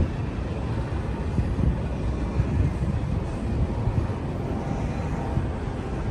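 Steady low rumble of a moving vehicle heard from inside, most likely a Las Vegas Monorail train car in motion.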